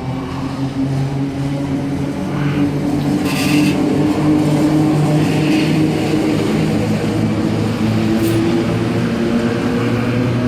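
A Red Rattler electric suburban train pulling out of the platform. Its motors and running gear grow louder over the first few seconds, then hold a steady hum, with a short hiss about three and a half seconds in.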